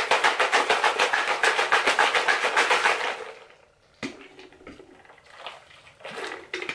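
A plastic shaker bottle of G Fuel drink mix being shaken hard, a rapid rattle of about six shakes a second that stops about three seconds in. A single sharp click follows about a second later as the cap is opened, then softer small sounds as he drinks.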